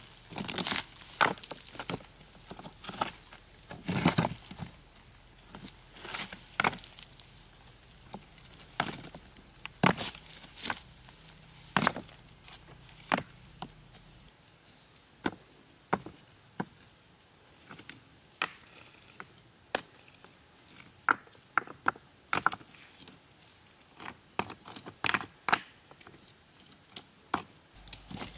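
Irregular sharp wooden knocks and snaps, from sticks or timber being worked by hand, over a steady faint high drone of insects.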